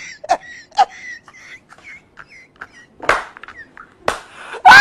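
A man holding back laughter in short snorts and clicks, then near the end bursting into a loud, high-pitched laugh that falls in pitch.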